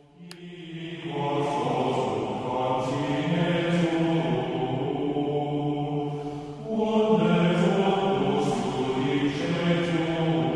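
Background music of men's voices chanting together over a held low note, in two long phrases with a brief break about six and a half seconds in.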